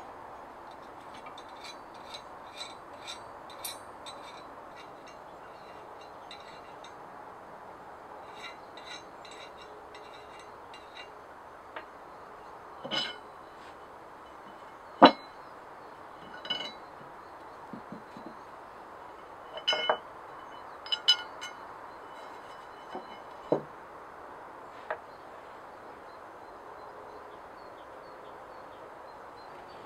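Parts of a hand-forged steel clamp, flat drilled bars, a square block and a pin, clinking against each other and knocking on a wooden bench as the clamp is taken apart and laid out. Light ticks in the first third, then scattered sharp metallic clinks with a short ring, the loudest a little past halfway.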